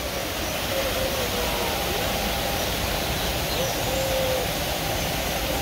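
Steady rushing of a waterfall, with faint wavering voices or calls in the background.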